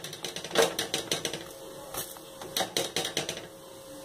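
Metal fork pressing and tapping a paratha on a hot tawa: a quick run of clicks and light scrapes as the tines hit the griddle, stopping about three and a half seconds in.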